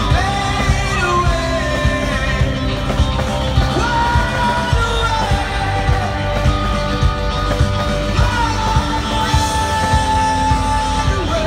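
Live rock band: a male lead singer holding long sung notes over electric guitar and a steady drum beat.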